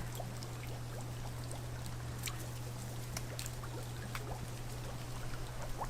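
Faint trickling of water in a garden fish pond over a steady low hum, with a few light scattered clicks.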